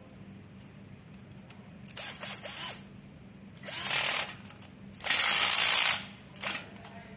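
Small electric screwdriver driving a screw into a metal clamp plate in four short runs. The runs are hissy motor-and-gear noise; the third, about five seconds in, is the longest and loudest, at about a second.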